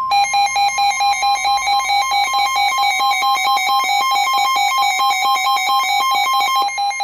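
NOAA Weather Radio warning alarm: a steady 1050 Hz tone marking a severe thunderstorm warning about to be broadcast. A lower, harsh electronic beep pulses rapidly over it, about three or four times a second.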